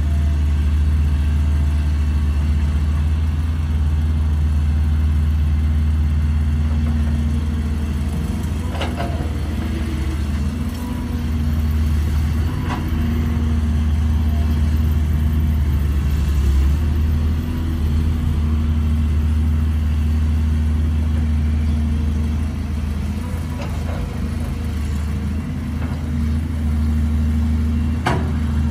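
Caterpillar 320C excavator's diesel engine running steadily under digging load, its note rising and dipping slightly as the machine works, with a few sharp knocks of the digging gear.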